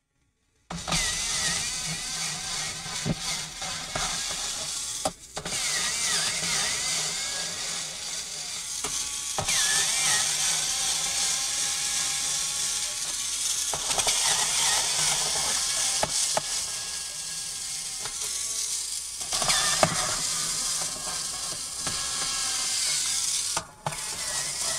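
Cordless electric screwdriver motor and gearbox whirring as it backs out the Phillips screws of a laptop's bottom cover. It runs in long stretches with a few brief stops, and its whine dips in pitch now and then as the load changes.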